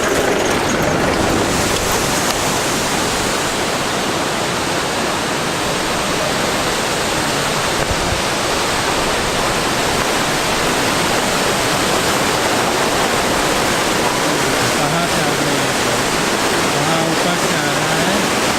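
Naga Falls waterfall rushing: a steady, loud wash of falling water with no break.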